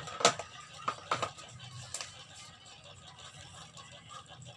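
Phone packaging and accessories being handled: a few sharp clicks and taps within the first two seconds, then only soft handling noise.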